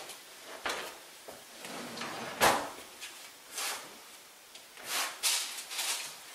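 Oven and baking pans being handled: a few knocks and short scrapes of metal, the loudest a sharp knock about two and a half seconds in, as the pan of hot water goes back into the oven and the oven is shut.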